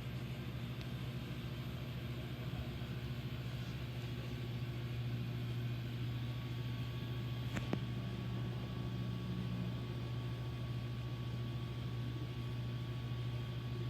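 Amana air conditioner compressor running with a loud, steady low hum, with a single sharp click about halfway through.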